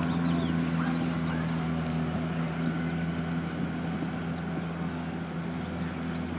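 A steady low mechanical drone holding two constant pitches, like a running engine or motor, with a few short bird chirps in about the first second and a half.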